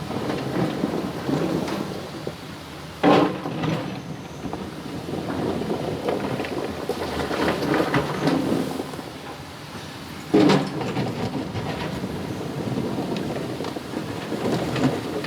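Excavator working in a stony river over a steady rumbling rush of water, with two sharp loud knocks about three seconds and ten seconds in, typical of the bucket striking stones.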